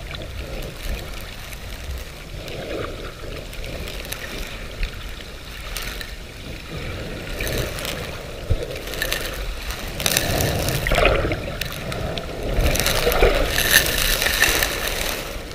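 Muffled water sloshing and surging heard through an underwater camera housing in shallow sea, a steady wash that swells louder about ten seconds in and again near the end.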